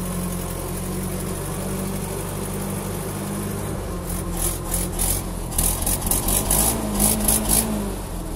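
Old forklift's engine idling steadily just after starting. From about halfway in, a run of short harsh noises, two or three a second, sounds over the engine.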